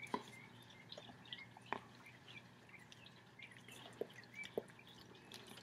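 A dog licking a person's face: a few faint, scattered wet clicks and smacks over quiet room tone.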